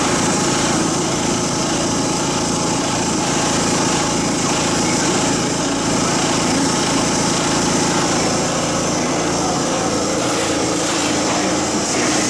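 A motor running steadily, a constant drone with a hiss over it, unchanging throughout.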